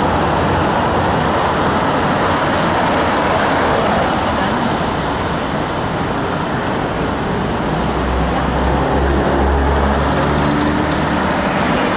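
Steady running rumble of a Hong Kong double-deck electric tram heard from its top deck, mixed with road traffic passing on the multi-lane road. A low hum comes up about eight seconds in and fades near the end.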